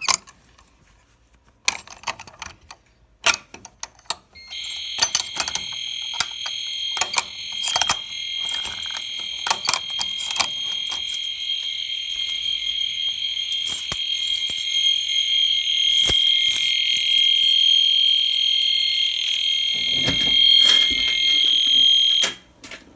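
Clicks and clunks of an FCI MS2 manual fire alarm pull station being handled and pulled. About four seconds in, a fire alarm sounder comes on with a steady, unbroken high-pitched tone, and it cuts off suddenly near the end.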